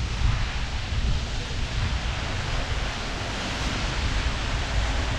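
Wind rushing over the microphone of a moving bicycle, a steady rush with a fluttering low rumble of buffeting beneath it.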